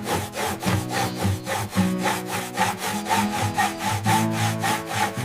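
A saw cutting through wood in quick, even strokes, about five a second, over background music; the sawing stops abruptly at the end.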